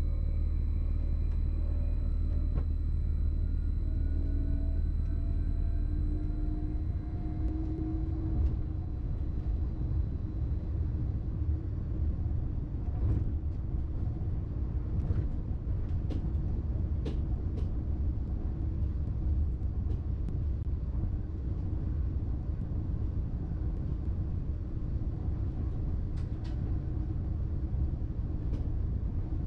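A BLS RABe 515 'MUTZ' electric multiple unit running, heard from the driver's cab. A steady low rumble of the train on the track runs under a motor whine that rises in pitch over the first several seconds as the train picks up speed, then fades. A few sharp ticks follow later on.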